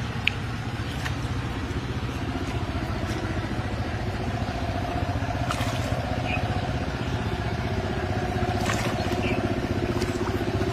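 An engine running steadily at an even pitch, with a few faint clicks or splashes.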